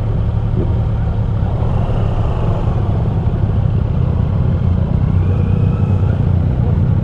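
Kawasaki Z900 SE's inline-four engine running steadily at low revs, a constant low rumble.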